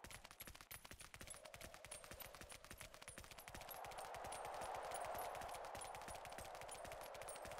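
Faint, rapid, irregular clicking and crackling over a hiss that grows louder about four seconds in.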